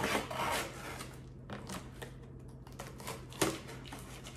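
Packing tape on a cardboard box being slit and scraped open with a small blade: a scratchy rasp for about the first second, then a few sharp clicks and taps, the loudest about three and a half seconds in.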